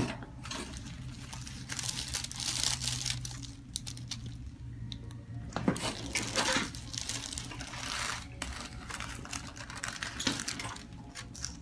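Rustling and crinkling, with a few short clicks, over a low steady hum.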